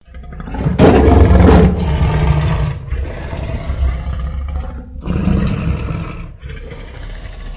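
Creature roar sound effect for the tapiraphant: a loud, harsh roar about a second in, trailing into low, rough rumbling growls broken by short pauses.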